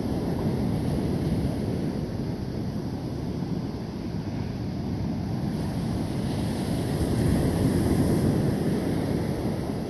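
Ocean surf breaking and washing up a sandy beach, a steady low rush with wind buffeting the microphone. It swells louder and hissier about six to eight seconds in as a wave breaks and washes in.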